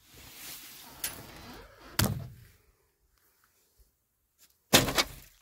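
Rustling and handling of items, with a click and then a knock about two seconds in. Near the end comes a loud, sharp double thunk, like a door shutting or something heavy dropped.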